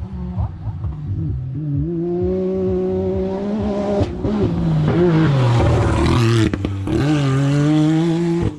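A rally competition vehicle's engine revving hard as it passes on the stage. The pitch climbs and falls back sharply about four seconds in and again near seven seconds, as it shifts or lifts, and it is loudest as it goes by.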